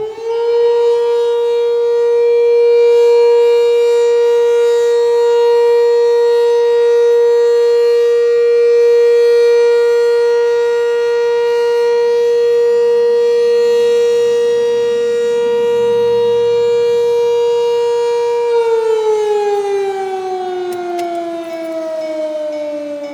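Sentry 3V8 civil defense siren sounding its noon test blast, heard from inside a car. It reaches full pitch just as the sound opens and holds one loud, steady tone with many overtones. After about eighteen seconds it winds down, its pitch falling.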